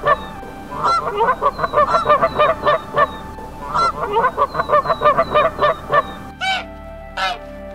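Canada geese honking in fast runs of loud calls separated by short pauses. About six seconds in the runs stop, and only a few separate calls follow.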